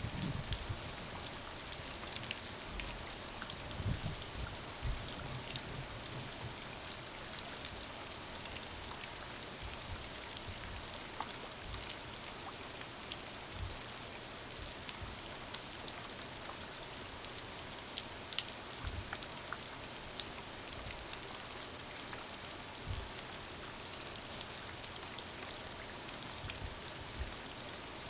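Steady rain falling, a constant hiss with individual drops ticking and pattering on a surface, and now and then a low thud.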